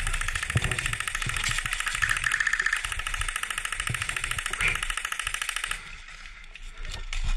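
Airsoft electric gun firing on full auto: a fast, even, buzzing rattle of many shots a second for about six seconds, stopping near the end.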